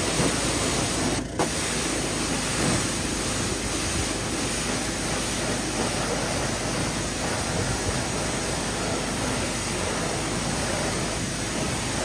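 Pressure washer jet spraying water onto a truck's tire and wheel, rinsing off soap: a steady hiss with a brief dip about a second in.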